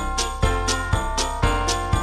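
Christmas background music with jingle bells over a steady beat of about two beats a second.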